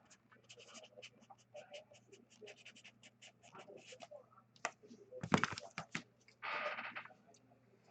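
Faint, rapid clicking and scratching, with one louder sharp knock about five seconds in and a short breathy rustle near the end.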